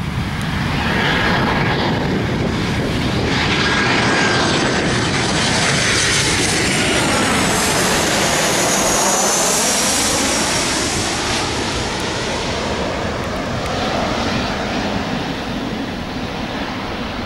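Boeing 737-800's CFM56-7B turbofan engines on landing approach, passing low overhead: a loud jet roar with a whine that sweeps down in pitch about halfway through as the aircraft goes by, then easing a little as it heads away.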